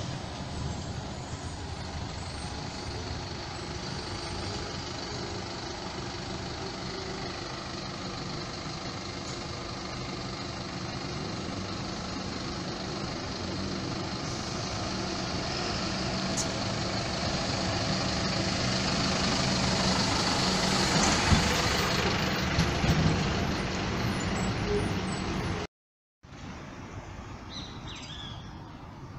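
City bus diesel engine growing steadily louder as the bus approaches along the street, with a hiss near its loudest point about three-quarters of the way through. The sound cuts off abruptly near the end and gives way to quieter street background.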